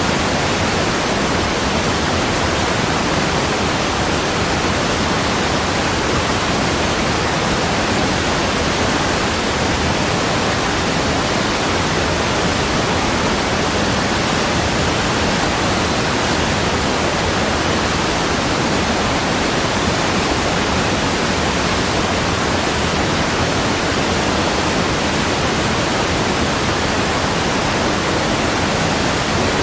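Steady rushing water: an even, unchanging hiss with no surges or separate splashes.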